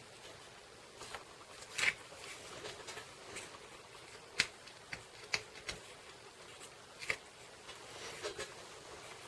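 Paper and cardstock being handled and pressed down on a work surface: scattered light taps, clicks and rustles, the loudest about two seconds in and again about four and a half seconds in.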